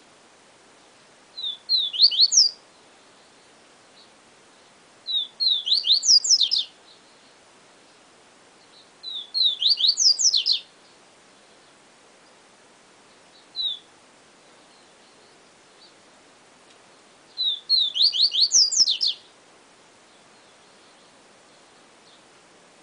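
A male Sporophila seedeater (papa-capim) singing its 'siu siu professor' song: four phrases of quick upward-sweeping high notes a few seconds apart, with a single short note between the third and fourth phrase.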